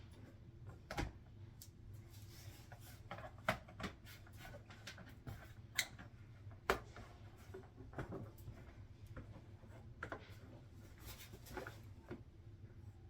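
Scissors cutting through a large cutting mat, heard as irregular sharp snips and clicks a second or so apart over a steady low hum.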